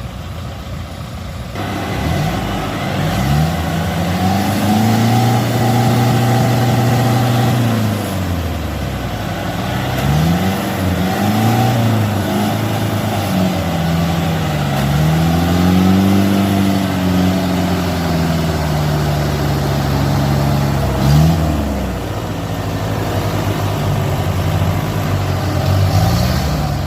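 Diesel engine of a tracked rice-field machine labouring in mud, revving up and easing off again and again. Its pitch rises and holds for a few seconds, then falls back, several times over.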